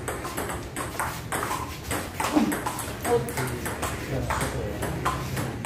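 Table tennis rally: the ball clicks off the paddles and bounces on the table in quick repeated taps.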